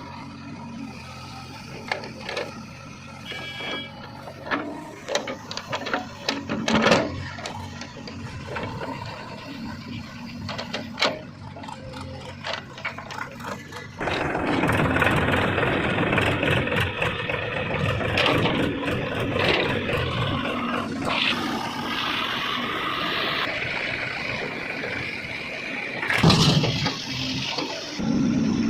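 Diesel machinery at work during mud loading: engines running with scattered knocks and clatter, turning much louder and denser about halfway through, with a loud bang near the end.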